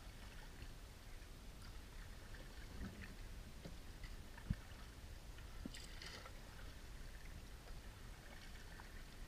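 Faint canoe paddling on a calm river: soft water sounds from the paddle strokes over a steady low rumble, with one sharp knock about four and a half seconds in.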